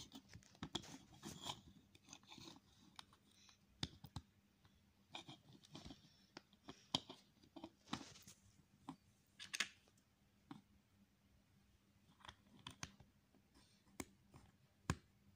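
Plastic Lego plates handled and pressed together: scattered sharp clicks and a few louder snaps, between soft plastic rubbing and scraping on a hard tabletop.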